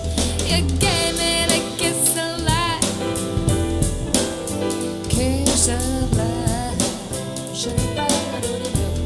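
Soul-jazz song with a singer holding wavering, vibrato-laden notes over drum kit and bass, played back through in-ear monitors and recorded for a sound comparison.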